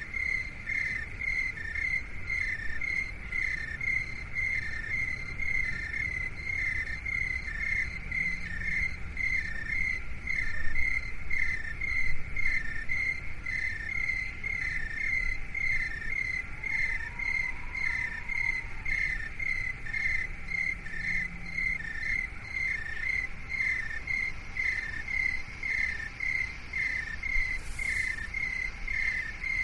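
Insects chirping in a steady, even rhythm, two slightly different pitches alternating, over a low rumble.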